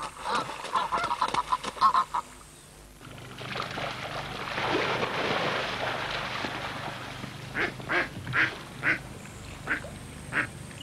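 A duck quacking repeatedly as a mugger crocodile attacks it, then a few seconds of water splashing, then several short, separate quacks.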